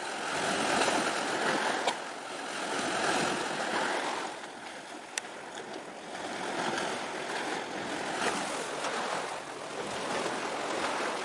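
Steady hiss of surf and wind at the shoreline, swelling and easing every couple of seconds, with two brief sharp clicks.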